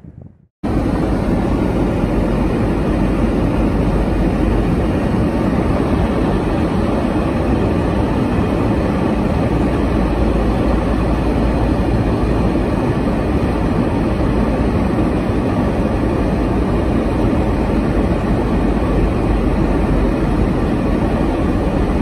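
Steady, loud rumble of wind and road noise in a car driving along a snow-blown road, starting suddenly about half a second in and holding an even level throughout.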